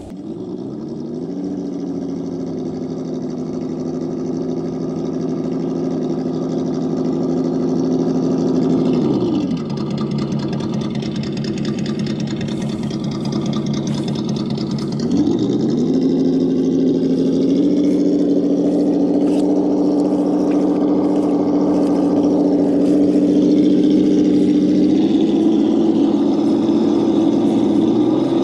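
Sense ESS-Dual engine sound simulator in a Traxxas TRX-4 Bronco RC crawler playing a simulated engine sound that follows the throttle. Its pitch rises about a second in, holds, drops back to idle around nine seconds, climbs again about fifteen seconds in, then steps up higher twice.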